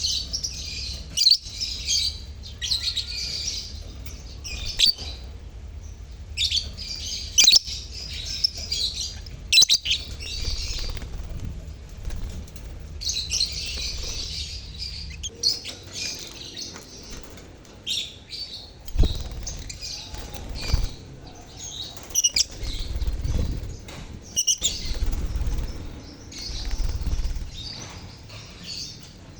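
A colony of lovebirds (Agapornis) chattering: dense bursts of shrill, high chirping that come and go every few seconds, with sharp clicks scattered among them.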